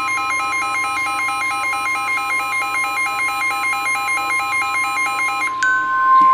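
NOAA Weather Radio's steady 1050 Hz warning alarm tone, with a weather radio receiver's own alert alarm rapidly switching between two pitches over it. About five and a half seconds in the switching alarm stops and the steady tone carries on alone, louder.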